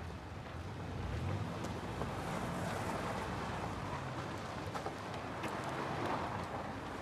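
A car pulling away and driving off down a dirt road: engine running and tyres crunching over dirt, the sound swelling about a second in.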